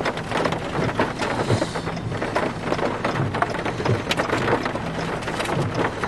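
Rain falling hard, with many irregular sharp drop impacts close by, over a low broken hum.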